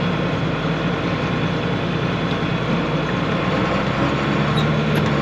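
John Deere 4250 tractor's six-cylinder diesel engine running steadily while pulling a loaded grain wagon, heard from inside the cab. The engine note shifts slightly about four seconds in.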